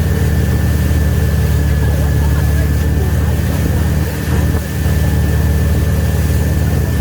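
Wake boat's engine running steadily, a deep even drone with a thin high whine over it.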